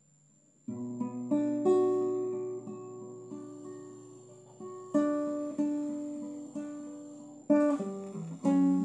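Acoustic guitar playing an instrumental introduction: chords plucked and strummed, each ringing and fading before the next, starting about a second in.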